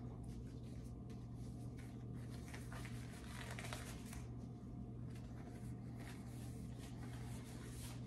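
Faint rustling of disposable exam gloves being taken out and pulled onto the hands, over a steady low hum.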